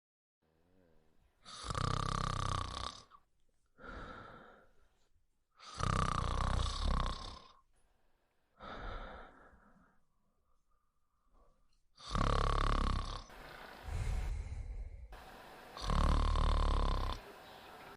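A sleeping woman snoring: four loud snores, each about a second and a half long, with softer breaths between them.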